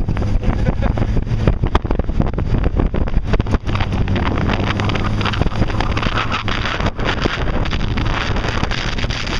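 Jeep running over a rough off-road trail: steady engine rumble with frequent knocks and rattles, and wind buffeting the microphone.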